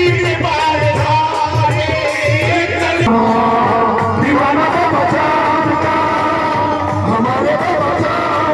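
Music with singing, an Indian devotional song over a pulsing drum beat; the music changes abruptly about three seconds in.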